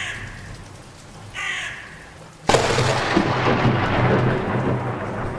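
A crow caws twice over faint rain, then a sudden crash of thunder about two and a half seconds in rumbles on over steady rain.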